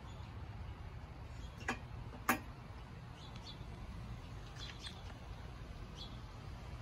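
A steady low rumble of wind outdoors, with two sharp clicks about two seconds in and a few faint, short, high bird chirps scattered after them.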